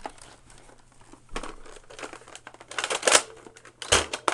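Handling noises from a plastic Nerf Longshot blaster and its taped clip: scrapes, rattles and clicks that start about a second and a half in and grow busier, with a sharp knock near the end.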